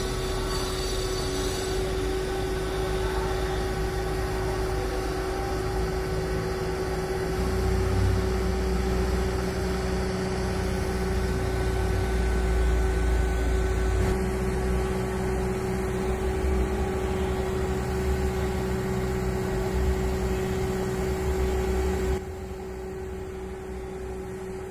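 Mobile crane's diesel engine running steadily while hoisting a load, its low rumble growing stronger about eight seconds in. Near the end the sound drops suddenly to a quieter background.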